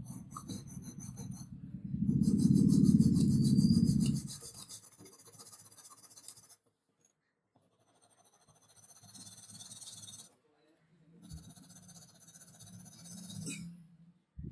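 Junior hacksaw cutting across the broken end of a painted wooden saw handle in rapid back-and-forth strokes. The strokes come in three bouts with short pauses between them, loudest about two to four seconds in.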